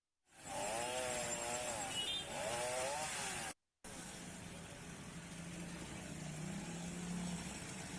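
Chainsaw cutting up a fallen tree, its pitch wavering up and down as it works. After a brief break about three and a half seconds in, a steadier, lower engine sound follows.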